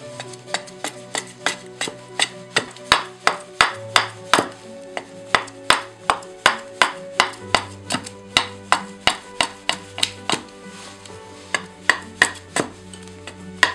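A hatchet chopping into an ash branch held on a wooden chopping block, sharp strikes at about three a second that thin out briefly near the end. Background music plays underneath.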